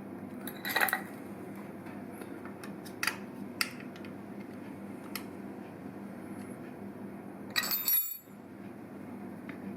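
Several light metallic clinks and knocks of steel tools and parts being handled, with a louder ringing clatter near the end, over a steady low hum. The pointed M8 threaded-rod marker is being taken off the milling machine setup.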